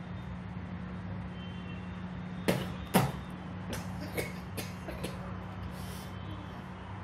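A man coughing and spluttering over a mouthful of coffee: two sharp coughs about two and a half seconds in, then several smaller splutters, over a steady low hum.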